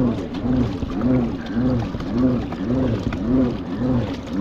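Pedal-drive kayak's gearbox and propeller whirring, the hum rising and falling in pitch with each push of the pedals, a little under two cycles a second.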